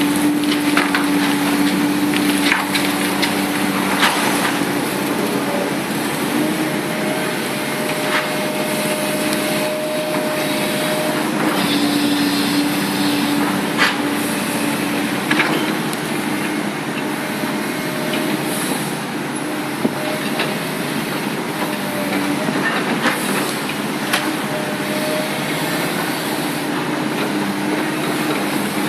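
Komatsu PC300-8 hydraulic excavator working: its diesel engine and hydraulics run steadily under a constant hum with a higher whine that comes and goes, and scattered sharp knocks and cracks are heard throughout.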